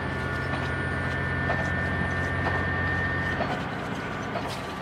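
Komatsu SA6D125H inline-six turbodiesel of a JR Shikoku 2000 series railcar running steadily under power, heard from inside the passenger cabin, with a high steady whine over it that stops about three seconds in. Near the end the engine note drops slightly.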